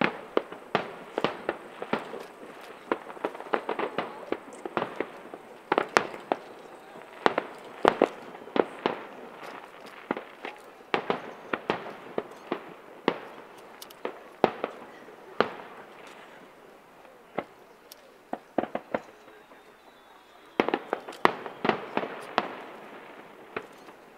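Fireworks going off: many sharp bangs and cracks in quick, irregular volleys, thinning out for a few seconds before a last dense flurry near the end.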